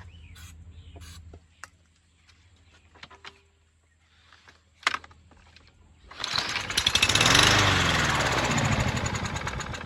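A sharp click about five seconds in, then a Craftsman push mower's single-cylinder engine fires on a pull and runs loudly with rapid firing, speeding up and then sagging, as it tries to burn off stale, water-contaminated fuel.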